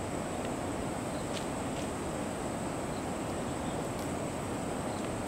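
Steady low rumble of a diesel locomotive still deep inside a railway tunnel, approaching, with a faint steady high whine above it.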